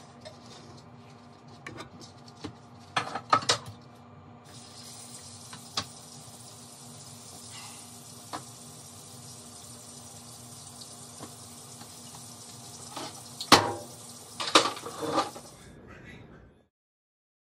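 Kitchen clatter: a few sharp knocks and clatters, about three seconds in and again in a cluster near the end, over a steady hiss and faint hum that cuts off suddenly before the end.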